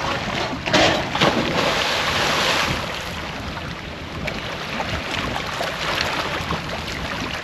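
A person jumps off a wooden dock into the lake: a loud splash about a second in, with a second hit just after and a short rush of spray. Steady wind buffets the microphone throughout.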